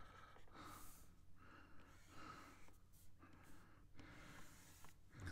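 Near silence: room tone with a low hum and a few faint breaths close to the microphone.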